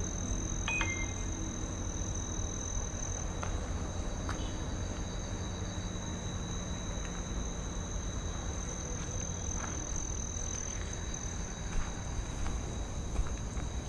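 Night insects, crickets, chirping in two steady high-pitched trills at different pitches, over a low background rumble, with a few faint clicks.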